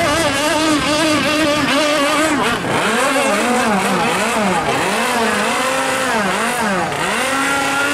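Mini speedboat engine running hard. Its pitch holds steady for the first couple of seconds, then rises and falls about once a second.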